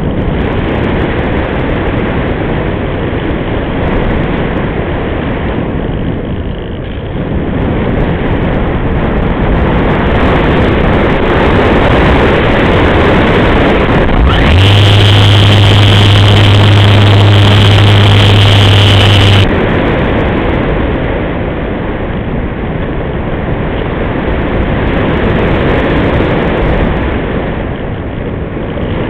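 Airflow rushing over an onboard camera microphone on an RC glider in flight, a loud steady rush. About halfway through, the glider's electric motor runs for about five seconds with a steady hum and a high whine, then cuts off suddenly.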